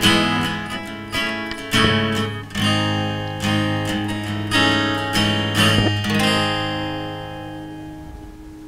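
Acoustic guitar strumming the closing chords of a song, a chord about every second, the last one left to ring and fade away over the final two seconds or so.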